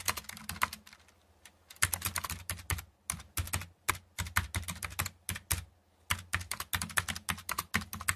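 Computer keyboard typing: quick runs of key clicks with short pauses, the longest about a second in, over a faint low hum.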